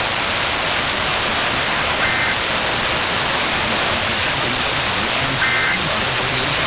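Steady, loud radio static hiss from a weak broadcast signal. Two short bursts of screechy two-tone EAS digital data, about two seconds in and again about five and a half seconds in: the end-of-message code that closes the alert test.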